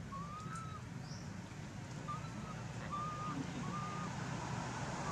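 Four short, thin, whistle-like animal calls, each rising slightly in pitch: one right at the start, then three more in quick succession from about two seconds in. They sound over a steady background hiss.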